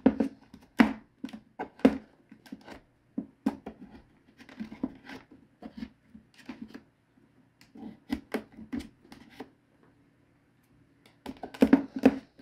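A rag wrapped over a tool scraping and clicking in the plastic vent slots on the back of an old GE clock radio's cabinet, in irregular strokes. There is a short lull near the end, then a quick flurry of scrubbing.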